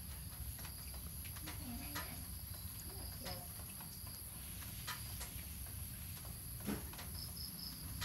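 Puppy gnawing on a shorts drawstring: scattered small clicks and mouthing sounds, irregular, about one every half second to a second, over a low steady hum.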